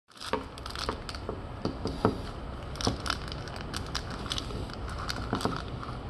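Irregular sharp clicks and light knocks, about a dozen, with some crinkling, as objects are handled close to the microphone.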